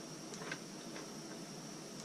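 A few faint light clicks as the soldering gun is handled, over a steady faint high-pitched whine.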